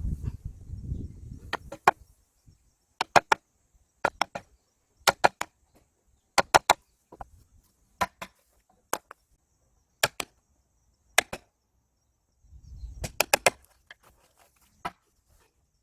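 A tool striking wood in sharp, separate knocks: quick pairs at first, then single blows about a second apart, and a fast run of strikes near the end.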